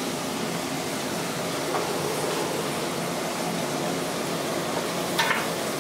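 Steady, even hiss of vegetables frying in a pot on a gas hob, with a brief voice about five seconds in.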